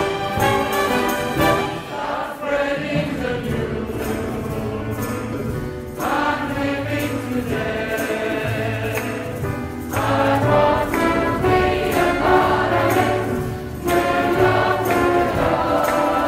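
Live student orchestra and choir performing a lively number, with percussion accents; the music moves into a new section several times.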